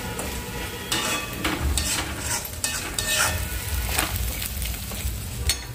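Ground masala paste sizzling in oil in a kadhai while a spatula stirs and scrapes it in repeated strokes, fried until the oil separates.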